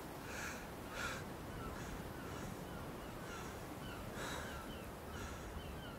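Birds calling: four short calls stand out over a steady run of small, quick, falling chirps.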